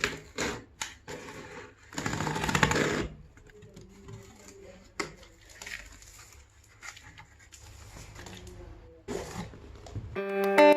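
Handling noise from a phone box and its packaging being opened: irregular rustling and clicks, with a longer stretch of rustling about two seconds in. Guitar music starts near the end.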